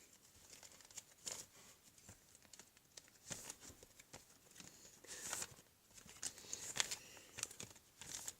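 Faint rustling and scattered light clicks of trading cards being handled and sorted, a few seconds apart.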